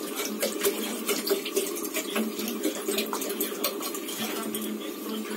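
Water poured from a plastic bottle into a pressure cooker of washed rice, with a steady run of small splashes and clicks.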